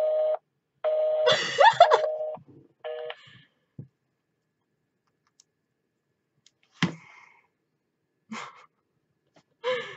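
An iPhone on speaker gives three steady electronic phone tones, short, long, short, as the recorded voicemail greeting ends. A person's short, high-pitched excited squeal overlaps the long tone, and a few brief quiet sounds follow near the end.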